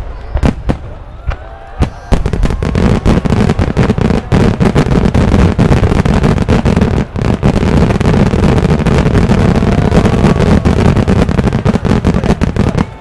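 Fireworks display going off: a few separate bangs at first, then about two seconds in a dense, continuous barrage of rapid bangs and crackling.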